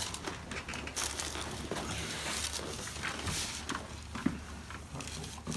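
Rustling and shuffling of a person rolling over from face down to face up on a padded chiropractic table, with a few light knocks and clicks.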